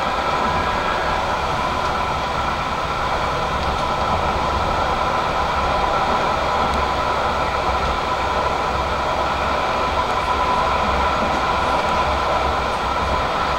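Electric tram running steadily at speed on ballasted track, heard from inside behind the driver's cab. A constant low rolling rumble carries steady whining tones over it.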